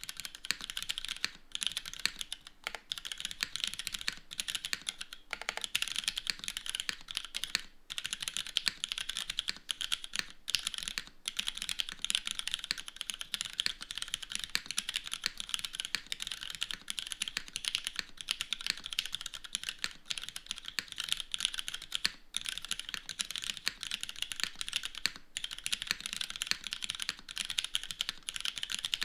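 Fast continuous typing on a 60% mechanical keyboard with Cherry RGB Black linear switches, a full aluminium top-mounted plate, no foam, and GMK doubleshot ABS keycaps: a dense clatter of key clacks with a few brief pauses.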